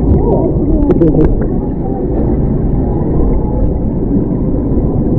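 Steady low rumbling background noise with faint, indistinct voices in the first second or so.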